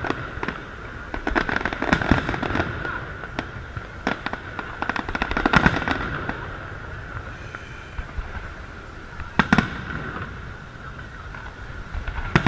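Fireworks display: aerial shells bursting overhead with sharp bangs and crackling, the loudest bangs about five and a half and nine and a half seconds in.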